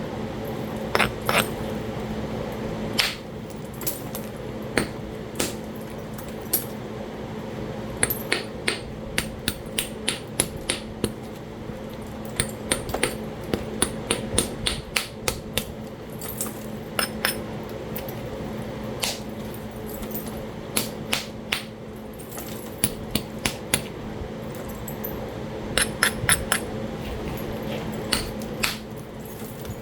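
Sharp stone-on-stone clicks and taps from flintknapping a Talahata quartzite biface, irregular and often in quick runs of several a second. A steady low hum runs underneath.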